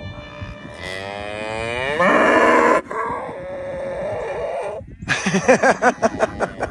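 Cattle mooing: one long moo starts about a second in, rises in pitch and is held for about four seconds. Near the end comes a quick run of short, pulsing calls.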